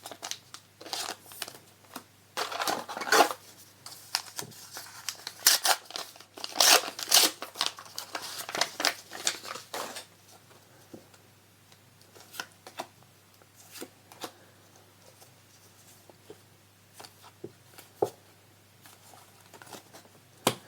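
Foil trading-card booster pack wrapper being crinkled and torn open in a run of rustles for about the first ten seconds, then cards handled quietly with a few light taps.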